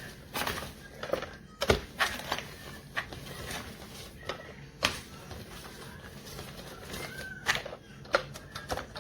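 Irregular clicks and knocks with a couple of brief squeaks, from a plastic twist-style meat shredder being handled and turned.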